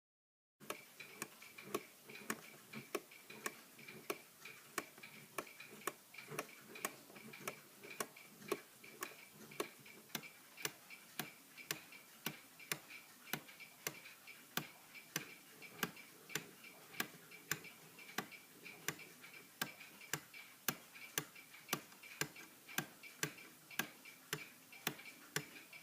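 Antique weight-driven clock movement ticking steadily, a little over two sharp ticks a second from its escapement.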